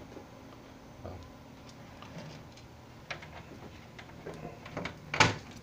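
Light, scattered clicks and taps from hands working on a fire alarm control panel's hinged metal front cover and key-lock switch, with one sharper clack about five seconds in.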